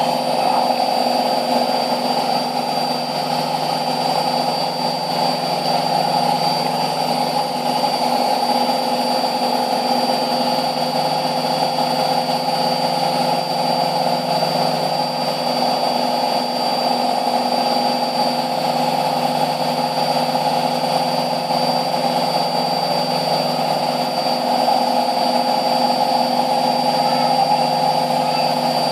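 Samsung Eco Bubble washing machine on its final spin, the drum turning at a steady speed with a constant hum and a steady high whine.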